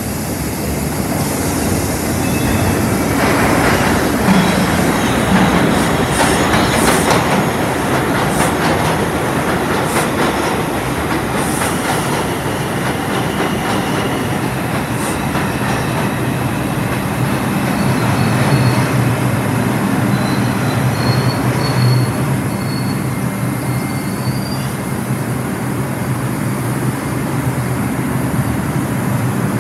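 R142 subway train pulling into an underground station. Its wheels clatter over rail joints as it runs in, and a few thin high squeals come from the wheels and brakes as it slows to a stop.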